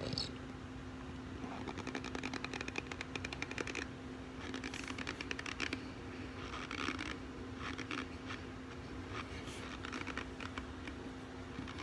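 Dry cornstarch crunching and squeaking in about half a dozen short crackly bursts, over a steady low hum.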